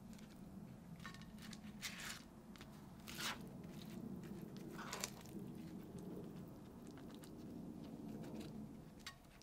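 Faint handling sounds as corn tortillas are filled with chopped cooked beef tongue from a frying pan: soft crackles and rustles, with a few louder scrapes about two, three and five seconds in.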